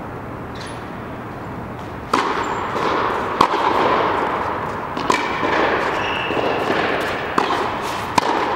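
Tennis ball being hit with a racket: about five sharp pops a second or more apart, over a steady noise that grows louder about two seconds in.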